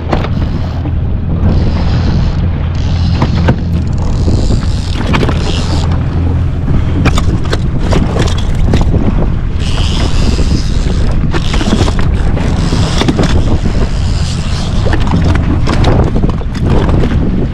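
Jet ski engine running steadily at low speed, under wind buffeting the microphone and water washing against the hull in gusts.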